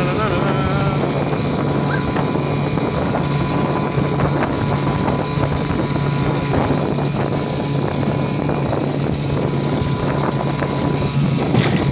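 1956 Johnson 5.5 hp two-stroke outboard motor running steadily at cruising speed, with rushing water and wind against the microphone.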